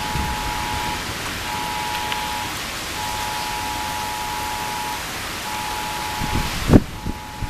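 Heavy rain making a steady hiss while a phone's wireless emergency alert tone sounds: two high tones together, in a repeating pattern of one long beep and two short ones, signalling an emergency alert. A sharp thump near the end.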